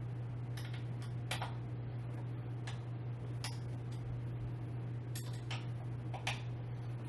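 Scattered light clicks and taps from a screwdriver and metal chair hardware being handled during gaming-chair assembly, irregularly spaced, over a steady low hum.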